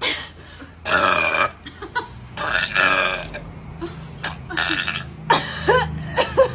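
A woman belching loudly, several times in a row: two long burps of nearly a second each in the first half, then a quick run of shorter ones near the end.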